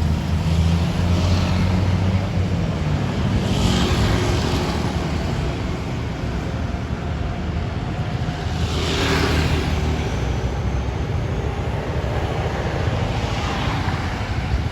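Road traffic: a large vehicle's engine running with a low steady hum that fades about halfway through, and vehicles passing by about 4 and 9 seconds in and again near the end.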